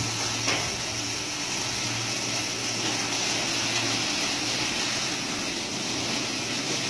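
Steady low machine hum under an even hiss, with one faint click about half a second in.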